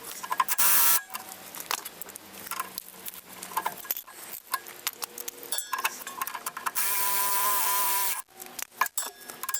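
A cordless power tool whirring twice, briefly near the start and for about a second and a half near the end, among steady clicking and clatter of hand tools on metal as a suspension bolt is loosened and removed.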